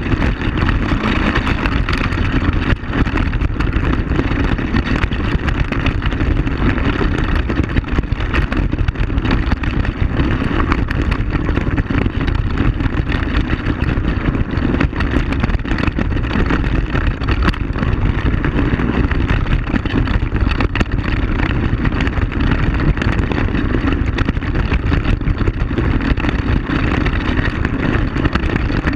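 ATV (quad bike) engine running steadily while the machine rides a rough gravel track, with frequent short knocks and rattles from the bumps.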